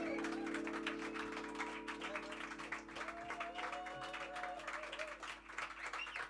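A band's final held chord ringing on and slowly fading, with scattered audience applause over it.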